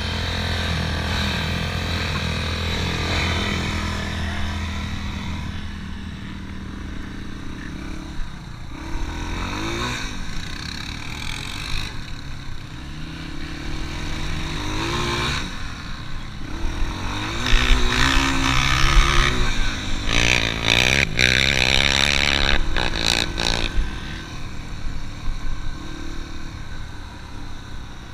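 Off-road vehicle engine carrying the camera across sand. It runs steadily at first, then revs up and down again and again as it rides over the dunes. In the middle part, a loud rushing noise of wind on the microphone joins the engine.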